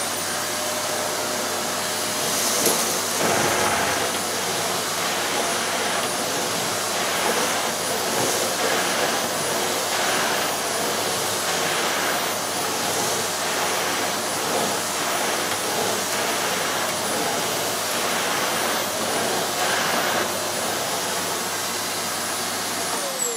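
Wellco CV16 1000-watt tub vacuum cleaner running at full suction with a steady high whine, its floor nozzle pushed back and forth over carpet as it sucks up paper scraps and dust. The level swells and eases about once a second with the strokes. It is switched off at the very end and the motor winds down.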